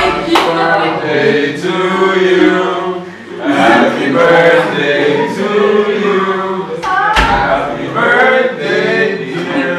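A group of people singing together, many voices at once.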